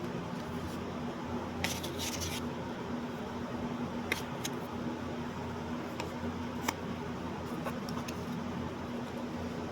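Steady low hum and hiss of room noise, with a few light clicks and a brief rustle about two seconds in.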